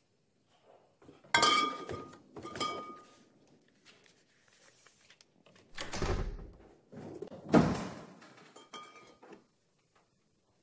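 Glass wine bottles being handled among cardboard boxes: a few separate clinks with a short glassy ring, and a dull heavy thud about six seconds in as a bottle is set down.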